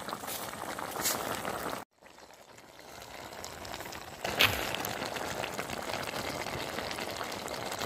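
Chicken pieces and chilli powder sizzling and bubbling in a steel cooking pot, with a single sharp knock about four and a half seconds in. The sound drops out briefly about two seconds in.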